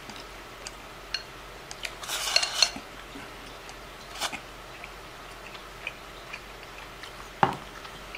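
Chopsticks clicking and scraping against a ceramic rice bowl as the last rice is gathered up. There is a short scraping run about two seconds in and a louder knock near the end.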